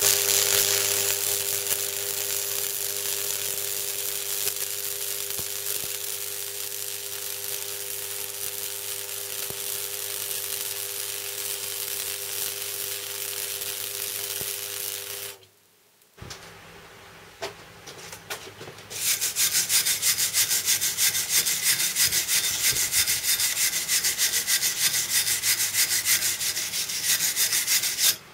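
Flux-cored MIG welding arc on electrode-negative polarity, the correct setting for flux-cored wire, welding steel: a steady hiss with a low electrical hum that cuts off about fifteen seconds in. After a short pause the arc strikes again with a fast, even crackle.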